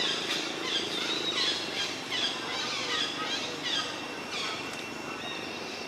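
High-pitched animal chirps, each falling in pitch, several a second for the first four seconds or so and then thinning out, over a steady thin high tone and outdoor background noise.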